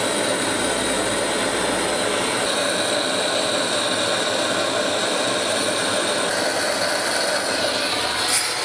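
Handheld gas blowtorch burning with a steady, even hiss as its flame heats a small metal rod on firebricks.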